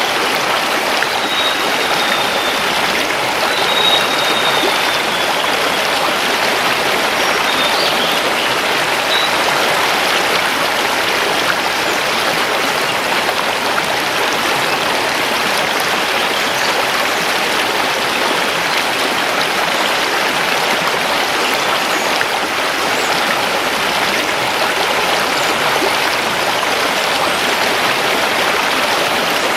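Mountain river rushing steadily over stones, with a few faint high bird whistles in the first several seconds.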